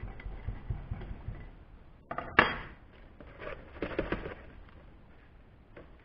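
Steel rod tamping sodium silicate core sand into a clamped core box with dull thumps, then a sharp clatter a little over two seconds in as the rod is put down on the bench. After that, a small metal scoop scrapes through the sand in a plastic tub.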